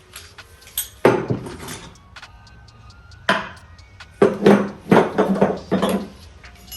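Metal parts of a Honda H22 Prelude manual gearbox knocking and clunking as they are lifted out and set down during teardown. There is a knock about a second in, another a little after three seconds, and a quick cluster of knocks between about four and six seconds, some with a short ring.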